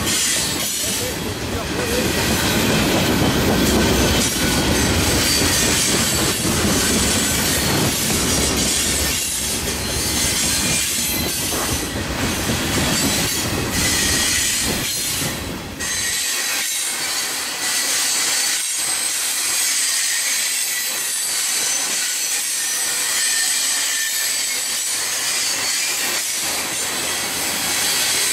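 Freight train cars rolling past at close range, steel wheels clicking over the rail joints over a steady rushing noise. The deep rumble drops away about sixteen seconds in, leaving the higher rolling noise and clicks.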